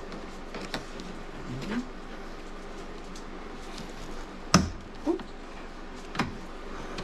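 Scattered plastic clicks and knocks as the interior door trim panel of a 2002 Chevy Tahoe is worked loose from the door. The loudest knock comes about four and a half seconds in, with another a little after six seconds.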